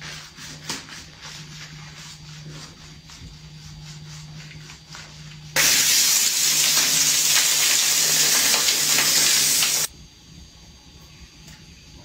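Hands working thick soap lather, a soft crackling squish. About five and a half seconds in, a handheld shower head sprays water over the arm, a loud steady hiss that cuts off abruptly some four seconds later.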